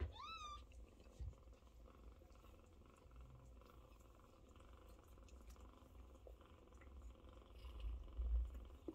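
Scottish Fold mother cat and her nursing kittens purring softly and steadily, opening with one short rising mew. A soft low bump sounds near the end.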